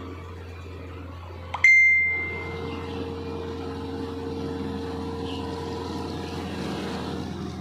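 A single bright bell ding about a second and a half in, ringing out for about a second. It is followed by a steady low hum of machinery, fitting the diesel engine of a railway track-maintenance train as it moves off.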